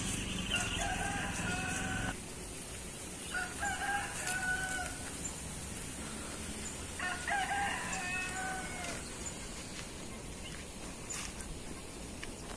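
A rooster crowing three times, each crow lasting about one and a half to two seconds, a few seconds apart.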